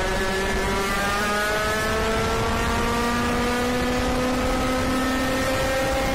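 IAME KA100 100cc two-stroke kart engine at full throttle, its pitch climbing slowly and steadily as the kart accelerates.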